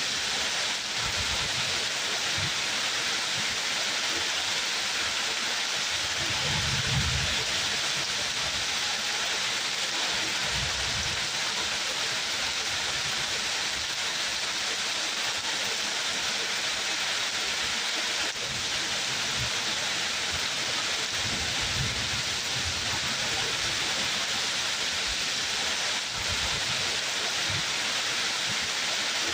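Steady, even rainfall hiss, with a few brief low rumbles at intervals.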